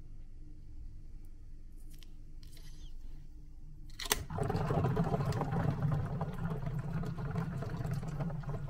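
Scissors snipping at the neck of a balloon packed with gel water beads, a few faint snips, then a sharp snap about four seconds in as the balloon is cut open. At once a dense spill of water beads follows, pouring and bouncing onto a glass bowl and the surface around it.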